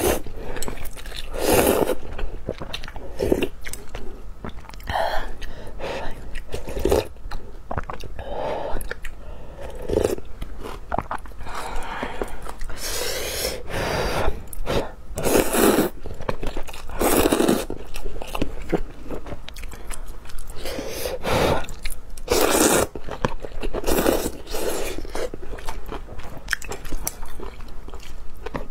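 Close-miked eating of rice noodles in soup: noodles slurped up from a spoon, with chewing and soft bites between the slurps, in irregular runs.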